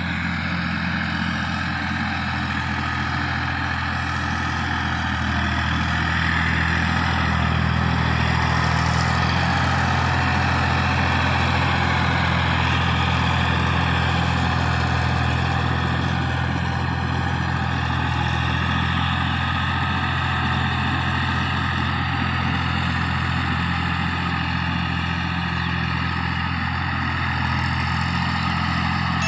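Massey Ferguson 9500 Smart tractor's diesel engine running steadily under load, pulling a laser land leveler across soil. It grows somewhat louder about six seconds in as the tractor comes closer.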